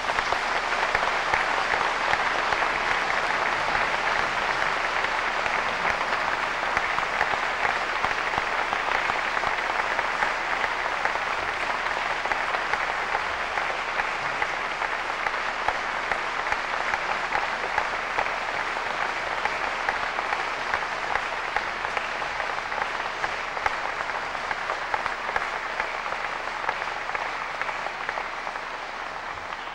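Audience applauding steadily after a live choral and keyboard piece, slowly dying down toward the end.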